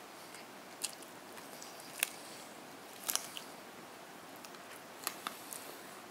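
A person eating crisp fried chicken chop and fries: a handful of short, sharp crunching bites spread about a second apart.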